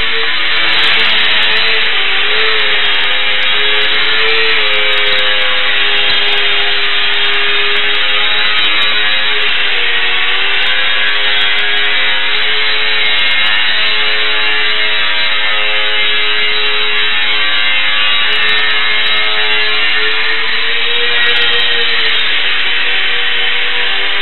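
Small electric motor and propeller of a micro RC aircraft, a steady high buzzing whine whose pitch dips and recovers a few times as the throttle changes.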